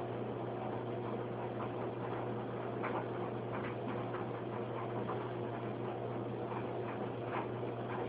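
Steady low hum with short, faint clicks scattered irregularly through it.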